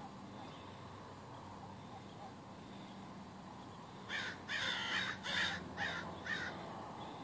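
An animal calling five times in quick succession, with short rough calls starting about four seconds in.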